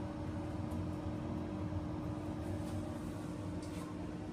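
Steady hum of ventilation machinery, with one constant low tone. A few faint light ticks come between about two and a half and four seconds in.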